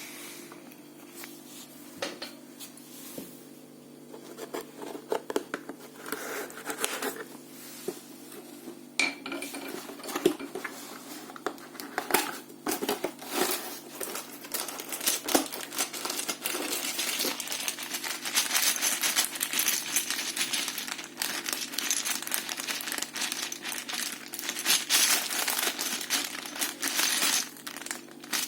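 Small plastic mosaic pieces clicking and clattering against one another and a hard surface, with some packaging crinkling. The clatter is scattered at first and grows dense and louder about two-thirds of the way through, as when many pieces are poured out or stirred.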